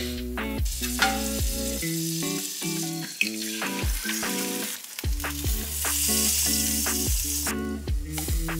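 An egg frying in hot oil in a nonstick skillet, a steady sizzle that gets louder past the middle. Background music with a regular beat plays over it.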